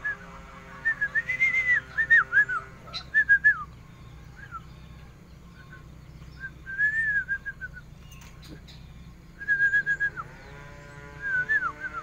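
A sooty-headed bulbul giving phrases of quick, bending whistled notes, five or six bursts with short pauses between them.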